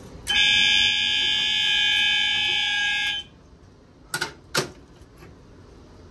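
Fire alarm horn sounding one steady tone for about three seconds: the brief walk-test signal after a manual pull station is pulled. Two quick clicks follow about a second later.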